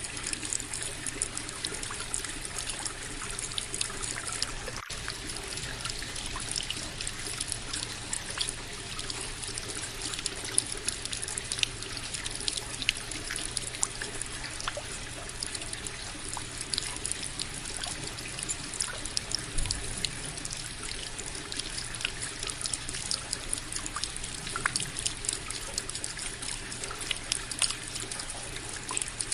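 Indoor tabletop water fountain trickling steadily, with many small splashes and drips over a faint steady low hum.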